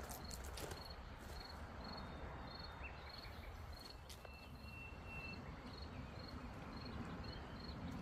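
An insect chirping steadily, short high chirps at one pitch about twice a second, over a low outdoor rumble. A few sharp clicks of pebbles underfoot near the start.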